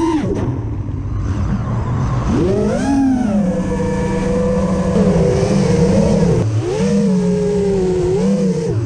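FPV racing quadcopter's brushless motors and propellers whining, the pitch swooping up and down with the throttle. The pitch drops sharply right at the start, surges about 3 s in, holds steadier for a few seconds, dips briefly around 6 s, and climbs again near the end.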